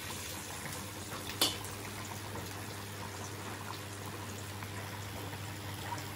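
Chopped aromatics frying gently in oil in a steel wok, stirred with a spatula that taps sharply against the wok once about a second and a half in, over a steady low hum.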